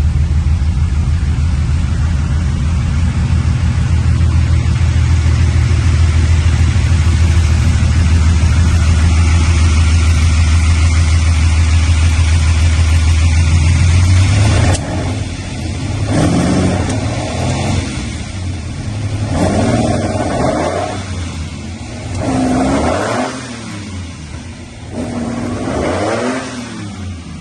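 Lamborghini Countach V12, freshly rebuilt, running steadily while it warms up. About halfway through the note changes suddenly, and then the engine rises in revs and falls back four times.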